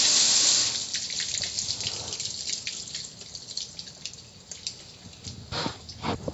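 Water pouring over a gas grill's metal lid and control panel, cut off under a second in, followed by scattered drips and trickles falling from the wet grill. A few louder short knocks come near the end.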